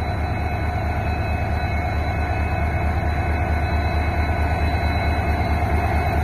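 WDG4 diesel-electric locomotive's 16-cylinder two-stroke EMD engine under load as it hauls a train out of the station, a steady low throb with a faint whine above it, growing slowly louder as the locomotive draws near.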